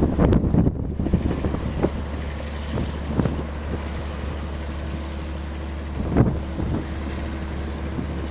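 Wind buffeting the microphone in irregular gusts, the strongest about six seconds in, over a steady low hum from the reversing cargo ship's engine. A sharp click sounds just at the start.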